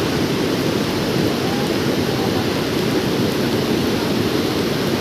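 Floodwater rushing steadily: a loud, even noise of fast-moving water, heaviest in the low-middle range.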